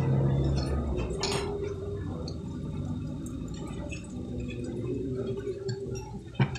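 Fork and spoon handled over dinner plates, with two sharp clinks, one about a second in and one near the end, over a low steady background murmur.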